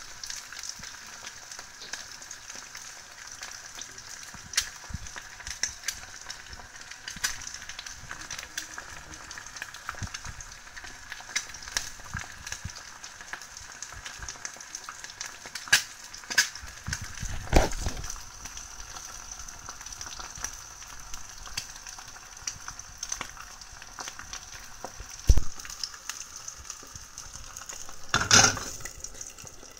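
Steady sizzling hiss of food frying in a pan, with scattered crackles and a few louder knocks and rustles of handling.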